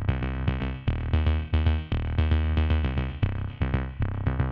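Background music with a steady electronic beat and a heavy bass line.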